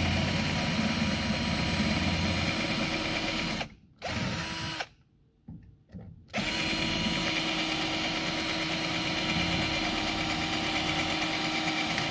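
Power drill running in three runs: one of about four seconds, a short burst about four seconds in, then a longer run from about six seconds in, its pitch rising each time it spins up. It is drilling out the fasteners that hold the Hyundai Sonata's door window regulator.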